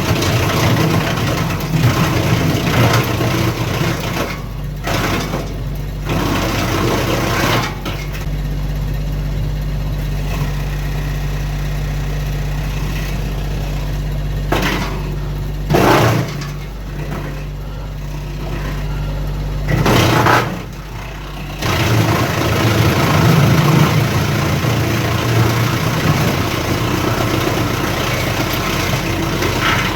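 Kioti CK2610 tractor's diesel engine running steadily to power a Titan BX42S three-point PTO wood chipper, with short loud bursts as branches are fed in and chewed through, the longest about 20 seconds in. The chipping grows denser through the last third.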